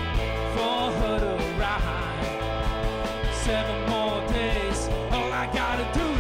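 Live rock band playing: electric guitars, bass guitar and drum kit, with a melody line that bends in pitch over a steady low end.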